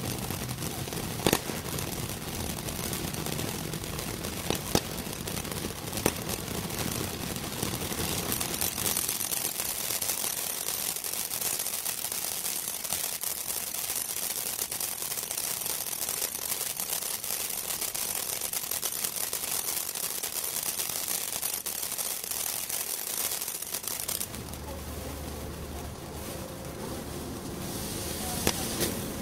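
Ground firework fountain burning: a steady rushing hiss with dense crackling. A few sharp pops come in the first six seconds, and the sound thins and changes at about 24 seconds.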